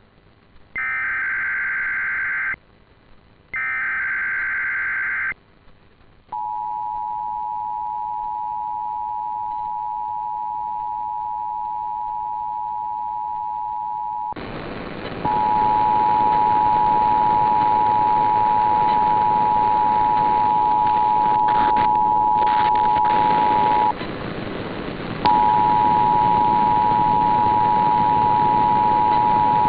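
Emergency Alert System monthly test. It opens with two short bursts of screechy SAME digital header data, then the steady two-tone EAS attention signal for about eight seconds. From about 14 seconds in, a second feed with a loud hiss plays the two-tone attention signal again, broken once by a pause of about a second before it resumes.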